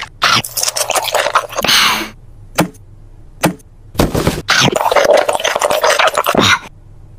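Cartoon eating sound effects: a quick run of crunching, munching bites, a pause broken by two single clicks, then a second longer burst of munching.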